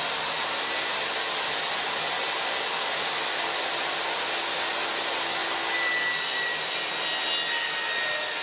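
Portable table saw running steadily while a thin 1/4-inch birch panel is fed through and ripped; a faint higher whine joins in about six seconds in.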